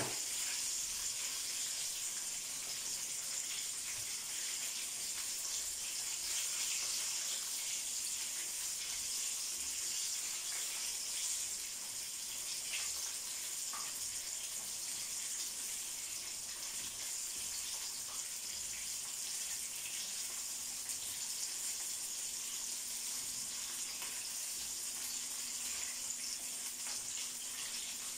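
Breaded chicken strips deep-frying in hot oil in a pan: a steady sizzling hiss, with a light clink or two of a wire skimmer and tongs about halfway through.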